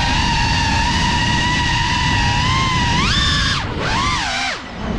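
FPV quadcopter (GEPRC Cinelog35) motors and propellers whining at a steady high pitch over wind rumble. About three seconds in the pitch rises as the throttle is pushed, then falls away and almost cuts out near the end as the throttle is chopped.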